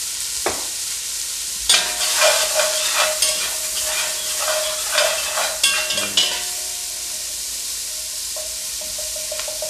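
Sliced fennel sizzling in bacon and chicken fat in an enameled cast-iron pot as it caramelizes. From about two seconds in until about six seconds, a spatula stirs it, scraping repeatedly across the pot's bottom. The pan then goes back to a steady sizzle.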